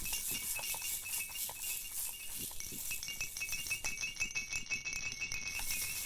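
Quiet background music with a rattling, shaker-like rhythm of quick clicks over repeating high tones.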